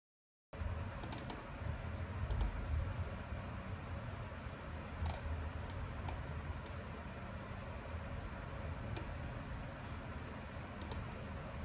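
Computer mouse clicking: about ten sharp, short clicks in ones and quick pairs, over a steady low room hum that starts suddenly after a silent first half-second.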